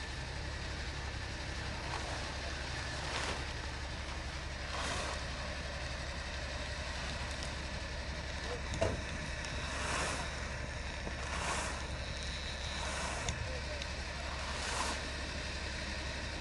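Hitachi excavator's diesel engine running steadily. Short rushes of noise recur every second or two, with a sharp knock about nine seconds in.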